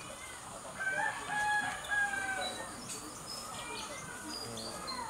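A bird's long, drawn-out call starting about a second in and held for about a second and a half, with small birds chirping faintly.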